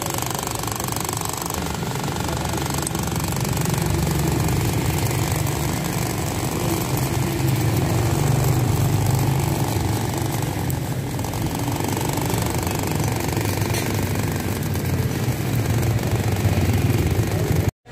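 Steady, loud, low mechanical rattle of a running machine, with a wash of noise over it; it cuts off suddenly just before the end.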